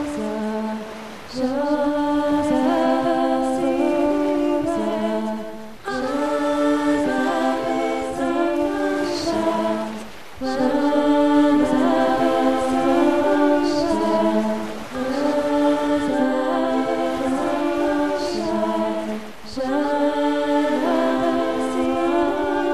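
A cappella singing: the voices repeat a short melodic phrase, each phrase about four and a half seconds long, with a brief break between phrases.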